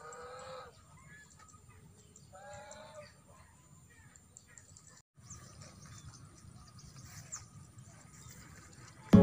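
Domestic geese honking twice, two short nasal calls, the first at the start and the second about two and a half seconds in. Near the very end, loud guitar music starts abruptly.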